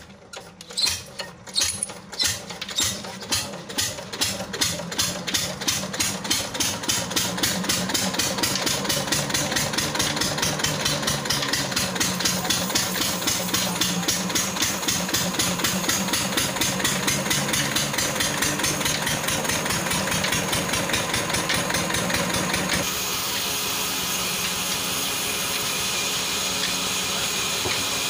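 A 12 hp single-cylinder water-cooled diesel engine, hand-cranked, catches and picks up speed. Its exhaust beats start slow and quicken into fast, steady chugging. About 23 seconds in, the beats give way to a steady machine whir.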